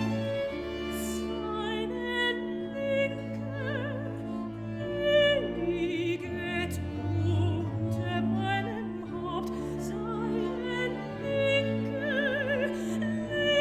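Baroque vocal music on period instruments: a voice singing with vibrato over bowed strings and held bass notes.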